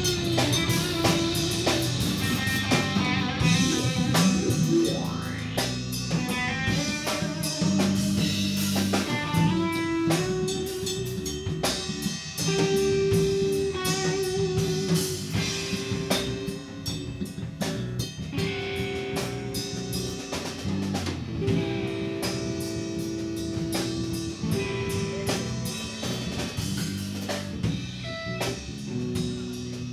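Live rock band playing guitar and drum kit, with held guitar notes over steady drumming and a few sliding notes a few seconds in.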